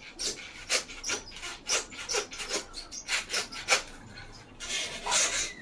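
A metal grabber tool scraping and jabbing in a toilet's trap, in short strokes about three times a second, with a longer rasp near the end. It is trying to fish out a wad of paper that is blocking the toilet.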